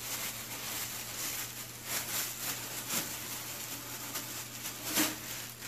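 Plastic wrapping crinkling and rustling as drill press parts are unwrapped and lifted out of the box, with sharper crackles about two, three and five seconds in.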